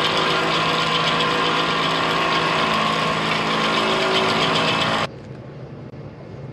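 12-volt electric winch running steadily as it pays out cable to lower a submersible pump into a well, a hum with a low steady tone. It cuts off suddenly about five seconds in, leaving a faint outdoor background.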